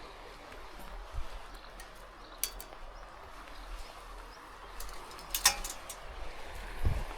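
Steady rush of a mountain river and rain, with a few sharp ticks and some low thuds.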